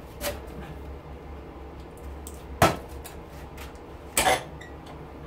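Sharp metal clanks and knocks as an aluminum pot-light can and a taped-on piece of furnace duct are taken from a bench vise and set down on a sheet-metal-topped workbench: a light knock at the start, the loudest clank about two and a half seconds in, and a quick double knock near the end, over a low steady hum.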